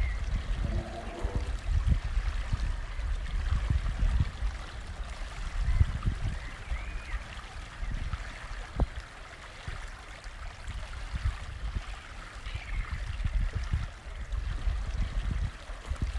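Outdoor lakeside ambience: wind buffeting the microphone in uneven gusts, with a few faint bird chirps.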